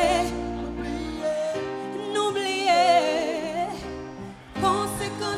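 Live music: a singer holding a long melodic line with vibrato over sustained keyboard-like chords and bass.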